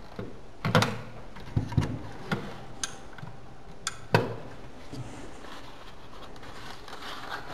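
Handling noise from a plastic retro video-game light gun and controller with their cables being moved on a wooden shelf: a scatter of short knocks and clicks, the loudest about four seconds in.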